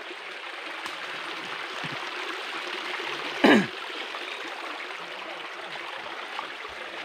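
Shallow forest creek flowing steadily over rocks. About halfway through comes a single short, loud cry that falls in pitch.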